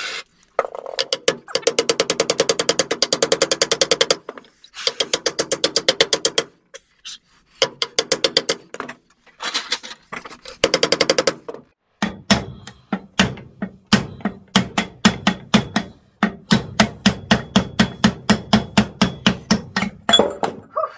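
Nylon mallet hammering on a wood lathe headstock spindle to drive it out of a torch-heated pulley. It comes in runs of rapid blows, several a second, with short pauses between. From about halfway the strikes are heavier, with more low thud, and keep on at a steadier pace to the end.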